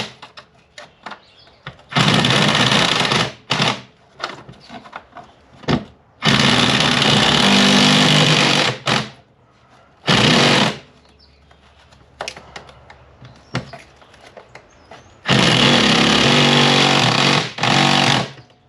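Impact wrench hammering in four bursts, the longest a few seconds, on the stainless steel bolts of a Range Rover Classic's footwell, which are stuck fast and won't come off.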